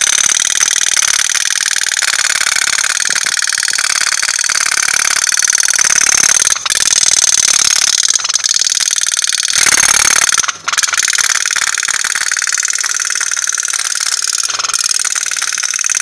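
Tin pop-pop steam boat running on water, its flame-heated boiler giving a rapid, steady putt-putt rattle, with a couple of momentary breaks.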